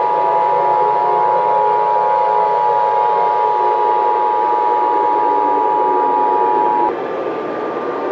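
Emergency Alert System attention signal: two steady tones sounded together, cutting off sharply about seven seconds in. A low noisy hiss runs beneath them and carries on after they stop.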